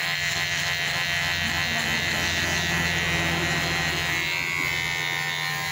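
Cordless electric hair clipper running with a steady, even hum as it trims hair at the side of the head.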